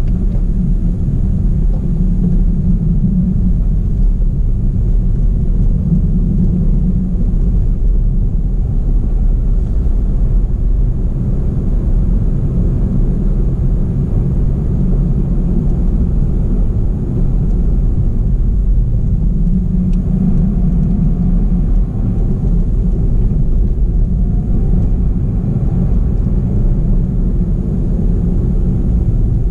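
Car driving on a paved road, heard from inside the cabin: a steady low rumble of engine and tyres.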